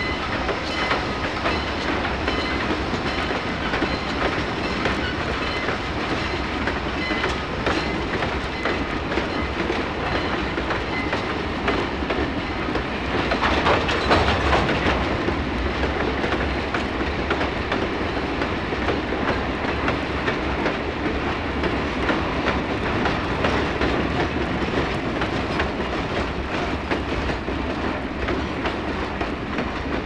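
Steam-hauled freight train rolling past, its wheels clicking steadily over rail joints, loudest about 13 to 15 seconds in. A crossing gate bell rings through the first several seconds and fades out.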